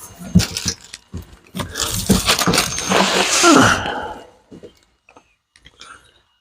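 A cardboard box being handled and set down on the floor: knocks, then loud rustling and scraping of cardboard for a couple of seconds, with a short falling squeal in the middle of it.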